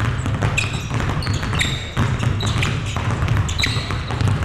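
Several basketballs dribbled hard at once on a hardwood gym floor, a dense, overlapping run of pound dribbles. Sneakers squeak on the floor several times.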